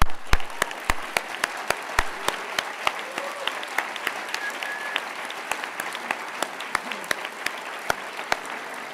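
Audience applauding: a steady mass of clapping with sharper single claps close by standing out.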